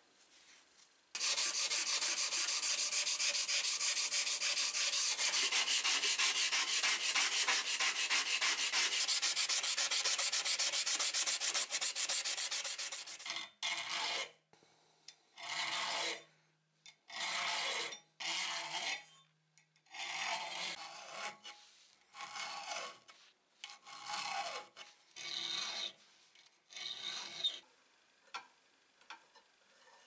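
Steel being worked by hand. First comes about twelve seconds of fast, continuous scraping. Then there are about eight slower, separate strokes, each lasting about a second, as a triangular file sharpens the teeth of a saw blade clamped in a vise.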